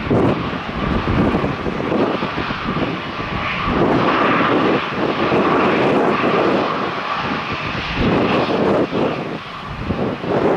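Airliner's engines roaring as it passes, growing loudest in the middle and easing off towards the end, with a faint steady whine in the roar. Wind buffets the microphone.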